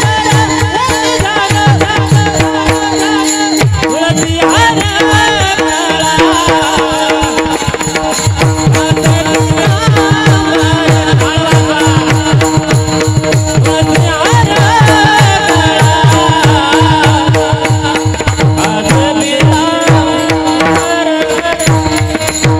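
Devotional kirtan bhajan music: a hand drum playing quick strokes whose deep notes slide down in pitch, over a steady held drone and melody, with small hand cymbals jingling throughout.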